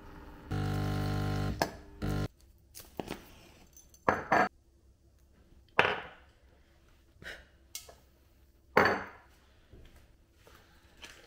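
Kitchen handling sounds: a steady machine hum about half a second in that lasts about a second, then a few sharp clinks, and a wooden match struck with a quick scrape and flare. A second, louder burst with a short fade comes near the end.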